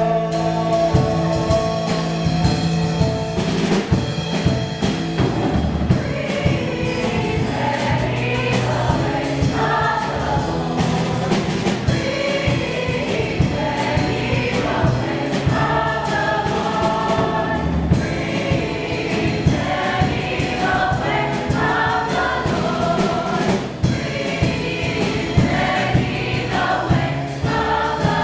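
Mixed chorus of young voices singing together over a band, with a held bass line underneath.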